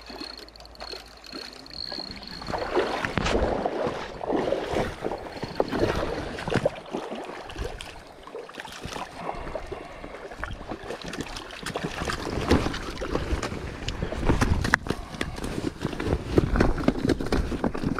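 A hooked salmon splashing and thrashing in shallow water over stones as it is landed, in irregular bursts of water noise. Near the end, jacket fabric rubs against the microphone.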